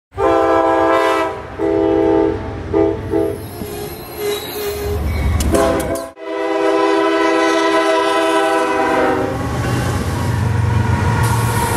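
Locomotive air horns: several separate blasts, then after a sudden cut about six seconds in, one long blast lasting about three seconds. It is followed by the low, steady rumble of a freight train's locomotives and wheels passing close by.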